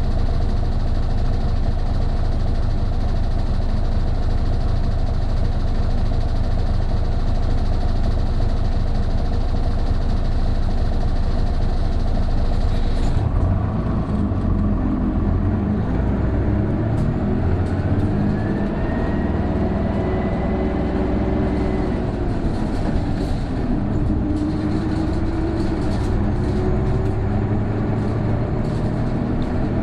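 Isuzu Erga PJ-KV234L1 city bus's turbo-diesel engine, heard on board, runs steadily and then, about 13 seconds in, pulls away, its note rising, dropping at a gear change and rising again. From about 17 seconds a high whine climbs alongside it: the abnormal noise this bus makes once the turbo comes in around 1300 rpm, like an Aisin automatic gearbox.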